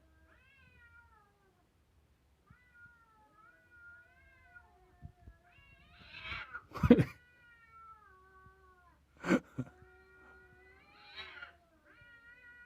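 A cat yowling: a series of long, drawn-out wavering calls, one after another, with two short harsh noisy bursts about seven and nine seconds in.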